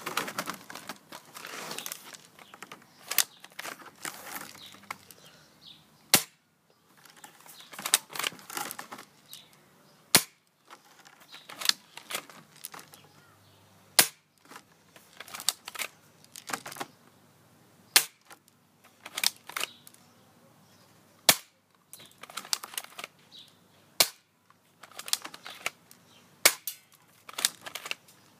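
Airsoft pistol firing single shots at a laptop screen: a sharp snap every two seconds or so, about a dozen and a half in all, with smaller clicks and rattles between the shots.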